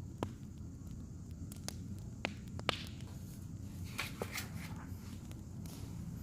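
Wood fire crackling: scattered sharp pops and snaps at irregular times over a steady low rumble.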